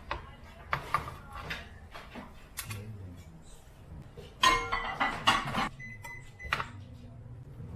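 Metal tongs clicking and scraping on a wooden cutting board and clinking against a glass baking dish as meat slices are moved across. A cluster of louder clinks comes about four and a half to five and a half seconds in.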